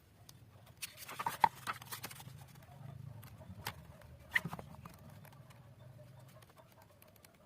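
Handling noise during unboxing: light rustling and small clicks and knocks, busiest about a second or two in, with a couple of sharper clicks later, over a faint low hum.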